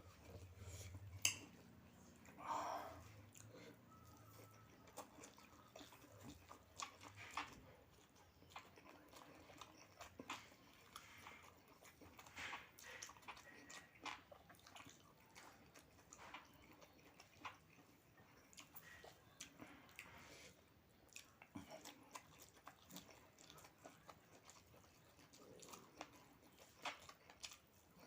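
A person chewing and biting food, faint, with many small crunchy clicks scattered throughout.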